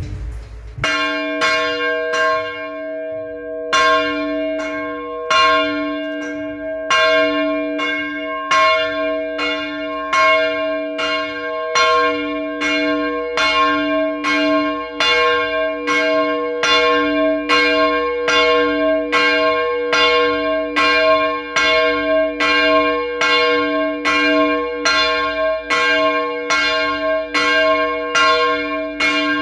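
The middle church bell, about 190 kg and cast by Bratia Fischer of Trnava in 1921, is rung on its own by swinging. The clapper first strikes about a second in. The strokes come slowly at first, then settle into a steady toll of about one every three quarters of a second, each ringing on into the next.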